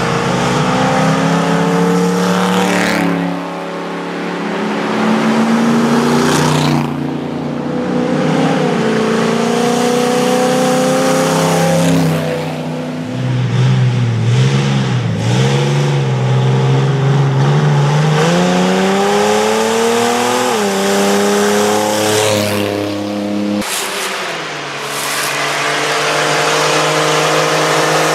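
Off-road race vehicle engines revving hard, their pitch climbing and dropping again and again through gear changes, with several louder swells.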